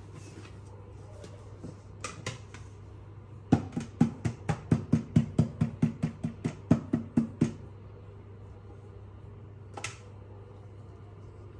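Hands slapping the bottom of an upturned aluminium custard mold, a quick run of about sixteen knocks at some four a second, to loosen the set caramel custard onto the plate beneath.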